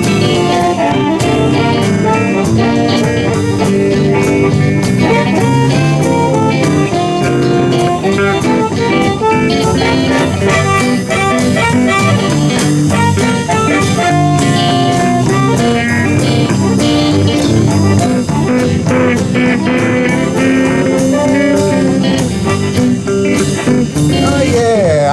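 Live blues band playing an instrumental passage of a song in the key of G, with guitars over bass and drums.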